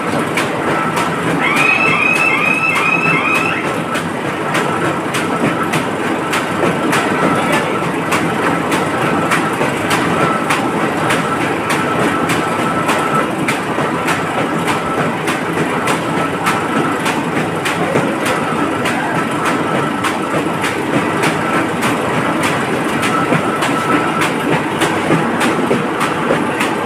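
Paper-plate sheet-making machine running steadily, a loud mechanical clatter of rollers and conveyor with fast, regular clicking. About two seconds in, a short run of five high chirps sounds over it.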